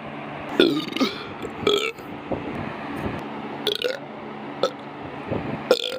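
A person burping, loud throaty belches coming about four times with short gaps between them, over a faint steady low hum.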